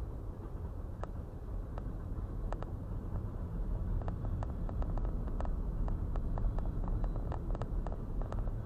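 Freight train rolling past through a grade crossing: a steady low rumble with irregular sharp clicks and clacks of wheels over the rails, getting busier and slightly louder about halfway through. It is heard muffled from inside a car waiting at the crossing.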